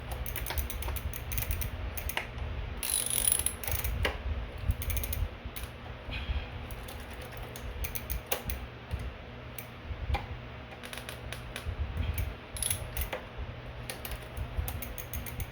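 Ratchet wrench clicking in irregular runs as the bolt holding a bicycle crank arm onto the bottom bracket spindle is tightened.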